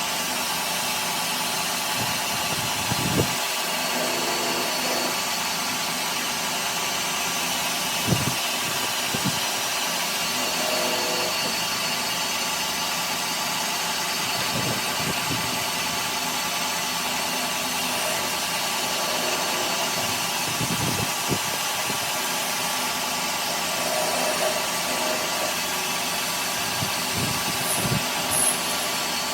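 A workshop machine running steadily, with a few short dull knocks at intervals.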